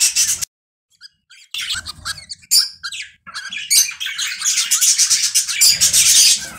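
Budgerigars calling: a busy run of shrill chirps and squawks, broken by a pause of about a second shortly after the start and loudest near the end.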